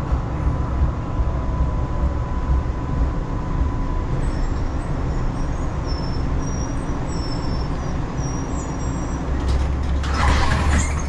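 Tram running along its tracks, heard from inside: a steady heavy low rumble of wheels on rail and motors. A faint steady whine fades out after about four seconds, and a short louder rush of noise comes near the end.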